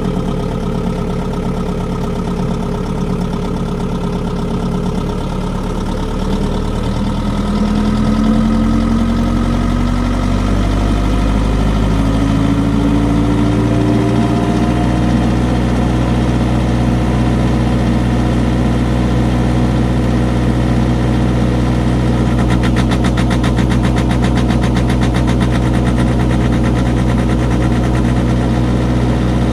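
Generator set engine running at low speed, then ramping up smoothly in speed over several seconds and settling to a steady, slightly louder run at its set speed: the governor's speed ramping being tested.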